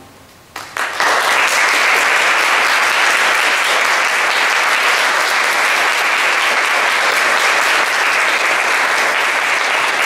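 Audience applauding: a few first claps about half a second in, then full, steady applause.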